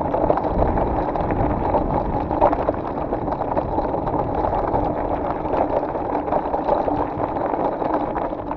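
Electric mountain bike coasting downhill on a rocky dirt track without pedalling: a steady, muffled rumble of the tyres on gravel, with the bike rattling over stones and wind on the microphone.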